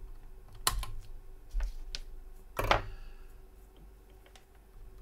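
Small flush cutters snipping the legs of a shorted output transistor on an amplifier board: a few sharp clicks about a second apart. The loudest comes near the middle, with a brief metallic ring after it.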